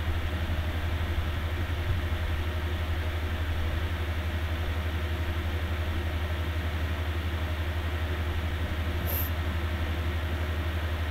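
Steady low hum with a constant hiss underneath, unchanging throughout, and one short faint high click about nine seconds in.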